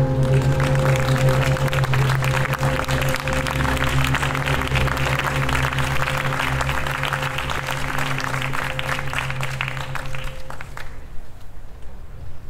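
Audience applauding over a low, sustained synthesizer drone; the applause and the drone both die away about ten seconds in.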